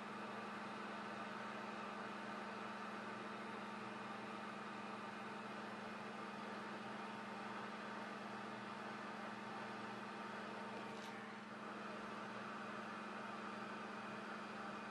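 Hot air rework station blowing at 30% airflow onto a reballed phone CPU, a steady hiss with a low hum, while it melts the solder balls to seat the chip on the board.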